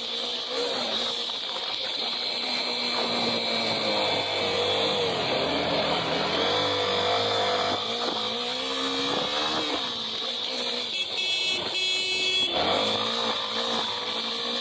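Motorcycle engine running as the bike is ridden along a street, its pitch rising and falling with the throttle, with wind noise.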